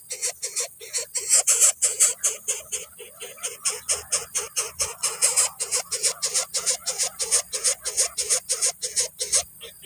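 Coucal nestlings begging at the nest: a rapid, even string of harsh calls, about five or six a second, kept up without a break.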